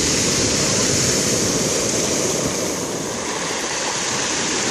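Black Sea waves washing onto the shore, a steady rushing surf with a slight lull about three seconds in.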